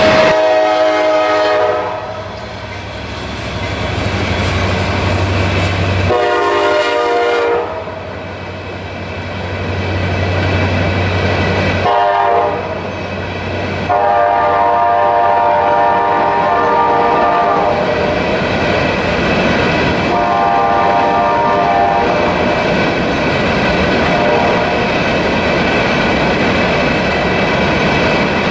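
A diesel locomotive's multi-chime air horn sounds a run of blasts, long, long, short, long, in the grade-crossing pattern, with another blast a few seconds later. Under it the engine drones, and then the train passes close by with wheels clacking over the rail joints.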